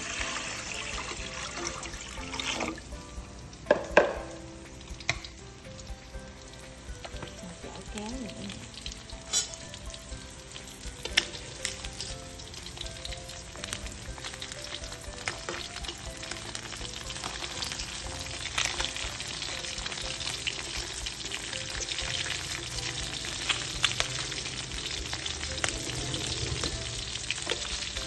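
Salted fish frying in hot oil: a steady sizzle, with occasional sharp clicks and knocks, the loudest about four seconds in.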